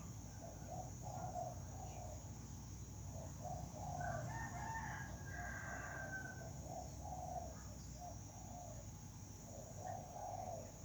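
Rooster crowing once about four seconds in, over short low calls repeating throughout.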